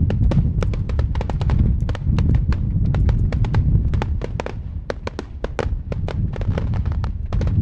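Star mine fireworks barrage going off in rapid succession: a continuous low booming from the shell bursts, with many sharp crackling reports, several a second.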